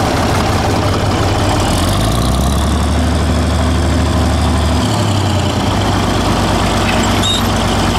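Six-cylinder diesel tractor engine running steadily, heard from the driver's seat. Its low note shifts for a few seconds in the middle.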